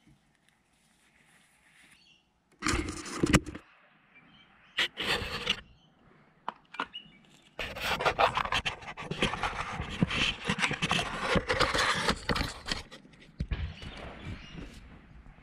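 Handling noise from a camera riding on a scratch-built model tram being grabbed and lifted by hand: two short scraping bursts, then from about eight seconds in a long stretch of rubbing and knocking on the camera body.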